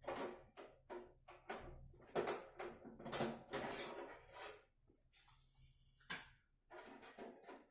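Small computer-case hardware being handled: an irregular series of plastic and metal clicks, knocks and scrapes.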